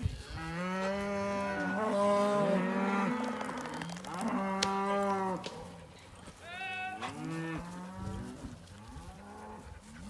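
Several cattle mooing, with long calls at different pitches overlapping one another in the first few seconds and then coming one after another.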